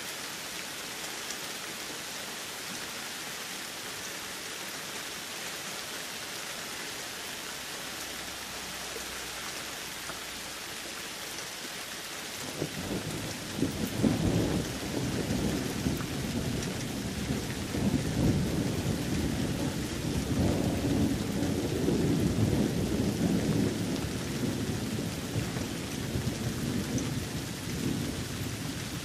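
Steady rain falling throughout. A little under halfway in, a long low roll of thunder comes in and keeps rumbling, swelling and easing.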